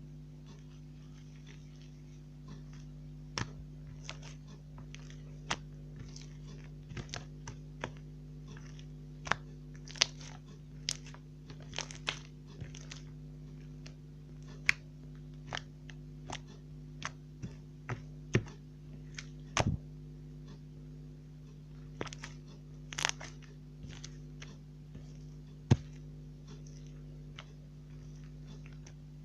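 Slime being handled and squeezed, giving irregular sticky clicks, pops and crackles, a few of them sharper and louder, over a steady low hum.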